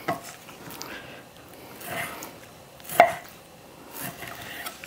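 Chef's knife slicing raw pork into cubes on a wooden cutting board, the blade knocking against the board a few times, sharpest about three seconds in.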